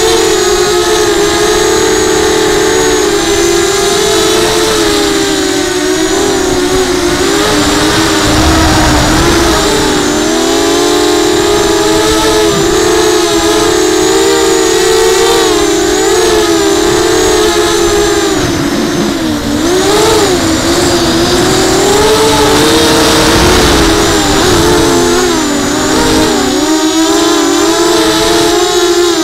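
FPV quadcopter's electric motors and propellers whining as heard from its onboard camera: several close tones that waver up and down together with the throttle and dip sharply a few times. Wind buffets the microphone now and then.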